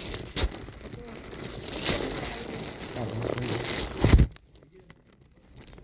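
Crinkling, rustling handling noise, like plastic or paper being handled close to the microphone, with a sharp knock near the start and a louder thump about four seconds in, after which it goes quiet.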